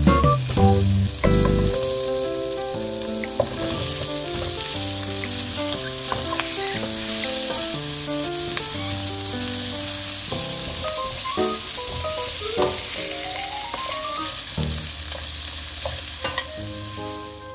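Vegetables frying in butter in a non-stick pan: a steady sizzle, stirred with a wooden spatula and turned with tongs, with light knocks against the pan.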